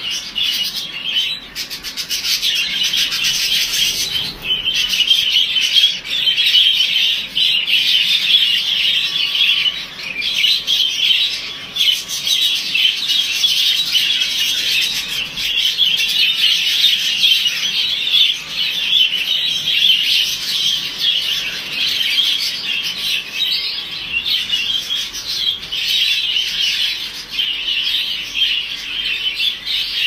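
A large flock of budgerigars chattering and warbling without pause: a dense, high twittering of many birds at once.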